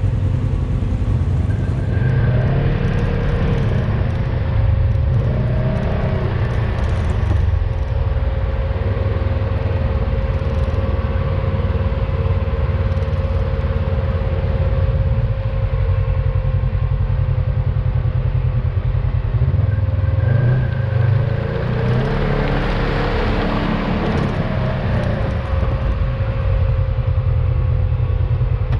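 Engine of a Polaris RZR High Lifter 1000 side-by-side running, a steady low rumble with a thin steady whine over it and a spell of louder hiss about three-quarters of the way through.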